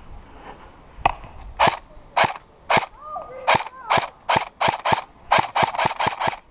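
Airsoft guns firing single shots, about fifteen sharp cracks spaced unevenly and coming faster in the second half.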